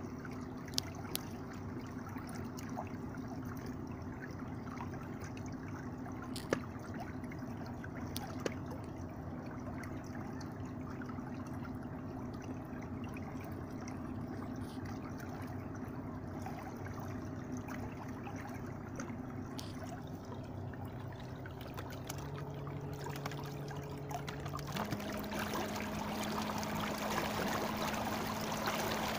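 Fisher 55 12-volt electric trolling motor running under the boat with a steady hum over the wash of its propeller and the water along the hull. Near the end the hum steps up in pitch twice, as the speed setting is raised, and the water noise grows louder.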